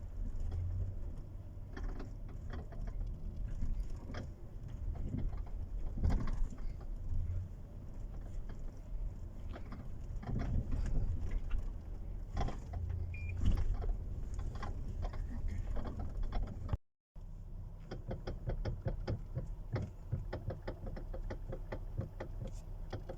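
Mechanical clicking and knocking over a low rumble, ending in a quick run of even clicks.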